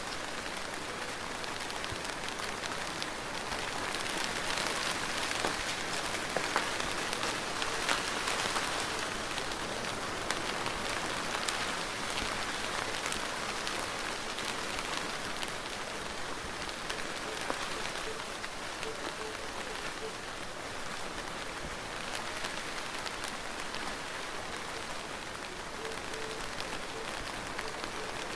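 Steady rain falling: an even hiss with many small drop ticks, a little heavier a few seconds in.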